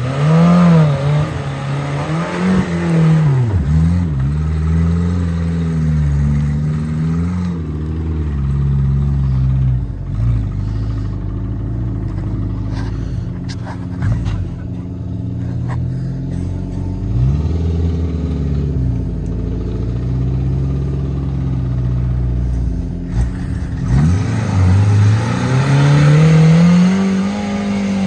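Small Suzuki 4x4's engine revving hard under load as it climbs a steep muddy slope, its pitch rising and falling repeatedly as the wheels spin and grip, with a strong climb in revs near the end.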